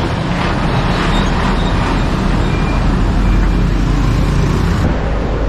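Steady road traffic noise, with motor vehicle engines and tyres running close by.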